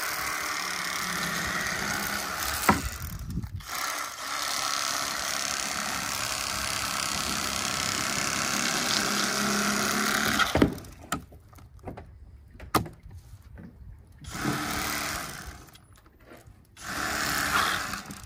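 Bubba Blade Pro Series electric fillet knife running as it cuts a redfish fillet along the backbone. It runs steadily for about ten seconds with one short break about three seconds in, then comes back in two shorter bursts near the end.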